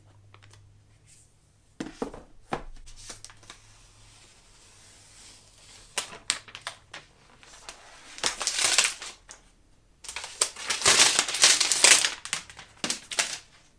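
Crinkling and rustling of packaging wrap being handled and pulled off a new tablet, in several bursts, the longest and loudest near the end.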